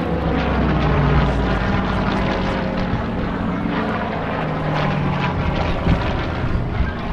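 Supermarine Spitfire's piston aero engine droning as it flies its display, the engine note shifting in pitch as it passes.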